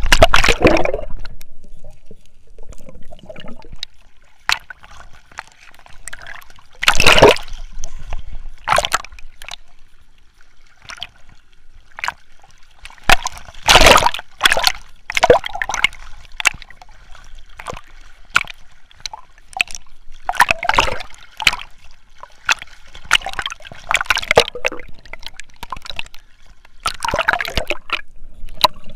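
Sea water sloshing and splashing over a camera held at the surface, in loud irregular bursts as small waves wash across it and it dips in and out of the water.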